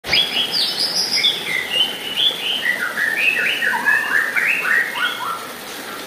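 White-rumped shama singing a fast, varied run of short whistled notes that slide up and down, stepping lower in pitch as the run goes on, over a steady rush of water.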